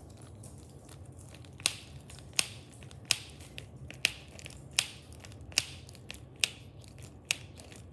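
Plastic wing joint of a Toothless dragon toy figure being worked, giving about eight sharp snapping clicks, evenly spaced a little under a second apart, starting near two seconds in. The joint catches on a hard spot and snaps past it.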